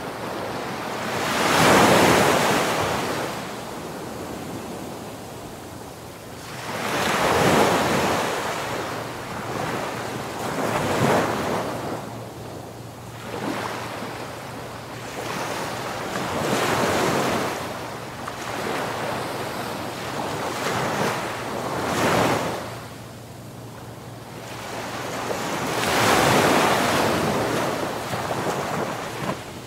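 Ocean waves breaking and washing up a shore, each wave swelling and falling away in turn, the biggest about every five seconds, with a wind-like hiss between them.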